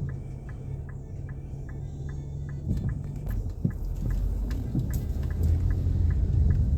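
Turn signal clicking steadily, about three clicks a second, inside a Nissan Pathfinder's cabin, over engine and road rumble that grows louder in the second half as the car speeds up.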